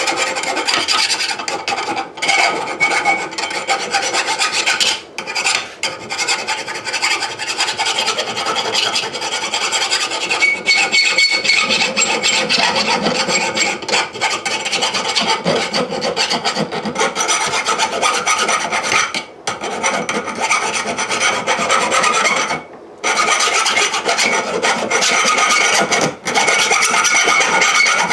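Power grinder grinding down the sharp edges of a steel anvil: a continuous harsh grinding with a wavering whine, broken by a few brief pauses as the disc is lifted off the metal.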